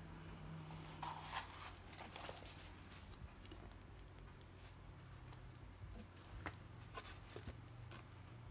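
Faint rustling and crinkling of a diamond painting canvas and its plastic cover film as it is picked up and handled, with scattered small crackles and clicks.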